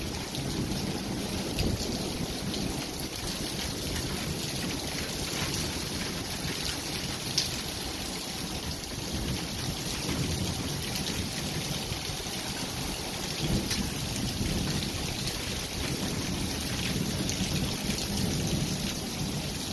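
Strong gusty wind with rain during a spring storm. The wind buffets the microphone as a low rumble under a steady rushing hiss.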